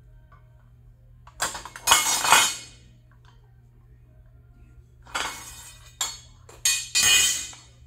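Steel tools clanking and scraping against an electric unicycle's aluminium motor cover and the concrete floor: a long steel bar and a bearing puller being shifted and set down. It comes in two spells of ringing metal clatter, one about a second and a half in and a second, broken into three, in the last few seconds.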